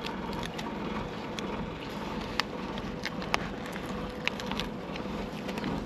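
Paper sticker sheet crackling as a sticker is peeled off it: a few sharp crinkles and clicks over a steady background rumble.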